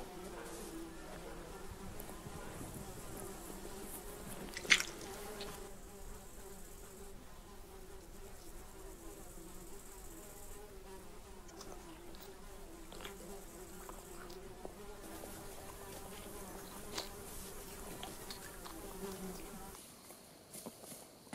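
Flies buzzing in a steady drone, with one sharp click about five seconds in and a fainter one later; the buzzing stops shortly before the end.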